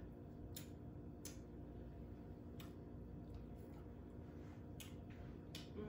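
Faint eating sounds: about five short, soft mouth clicks and smacks from someone chewing seafood-boil shrimp and sucking sauce off her fingers, over a steady low hum.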